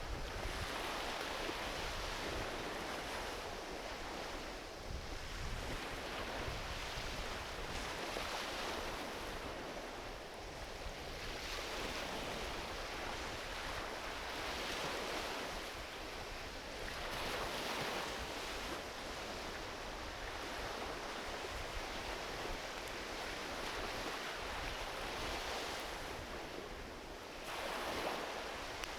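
Gentle ocean waves rolling onto a beach, a hiss that swells and fades every few seconds, with a low rumble of wind on the microphone.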